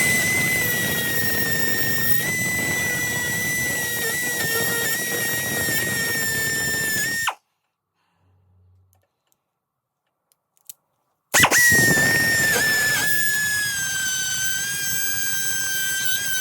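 Die grinder running at high speed with a carbide burr, grinding away a broken, very hard easy out lodged in a bolt hole in an aluminium cylinder. It cuts off about seven seconds in and is silent for about four seconds, then starts again, its whine sinking slowly in pitch as the burr bites.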